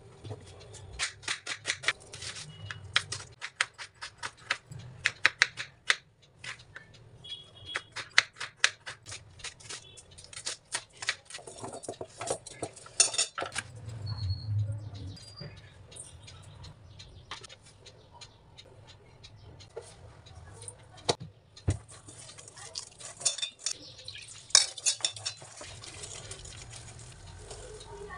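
Kitchen knife slicing onions on a bamboo cutting board, a fast run of knife taps for about the first half. Then sparser knocks and clinks of a steel bowl as the slices are mixed by hand.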